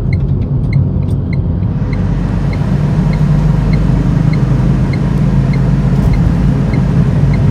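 Cabin noise in a moving Tata Tigor with a three-cylinder petrol engine: a steady low engine and road drone. About a second and a half in, the air-conditioning blower comes on with an even rush of air. Faint ticks repeat about three times a second throughout.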